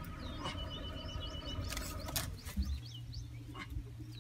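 Birds chirping in short, quick notes, with a few sharp clicks and, from about two-thirds of the way in, a low steady hum.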